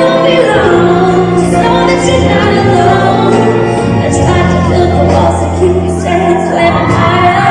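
Live amplified music: a woman singing held notes over band accompaniment with a steady bass.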